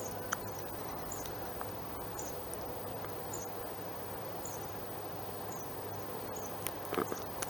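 Cricket-chirp ringtone sound played from a Siemens M65 mobile phone: a short high chirp about once a second over a steady hiss.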